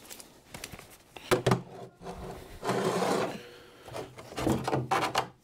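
Hand tools working a small screw out of a lorry wing's marker lamp: a few knocks and clicks, a scraping, rasping stretch about two seconds in, then more knocks near the end.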